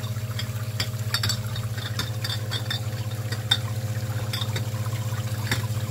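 1/4 HP Barracuda utility pump running with a steady low hum, driving water that sprays up into upturned glass beer bottles and splashes back into the sink. Scattered light clicks of the glass bottles knocking as they are twisted on their nozzles.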